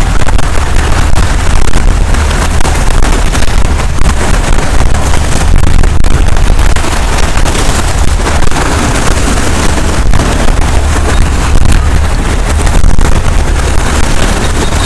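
Wind buffeting the microphone with a heavy, constant low rumble, over waves breaking and washing against a rocky shore.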